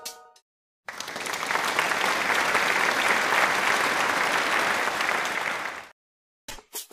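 Crowd applause that swells in about a second in, holds steady, and fades out after about five seconds. The end of drum-backed music fades at the start, and new music begins near the end.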